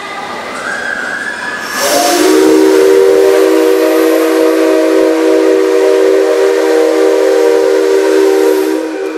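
Whistle of steam locomotive C57 135 blown on compressed air rather than steam, giving a dry sound. One long blast of about seven seconds, starting about two seconds in: a chord of several steady low tones with a hiss of air over them.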